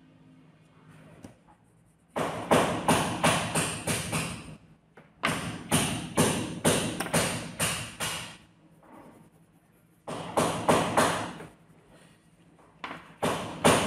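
Coloured pencil scribbling back and forth on a paper card on a tabletop, in runs of quick strokes about four a second with short pauses between.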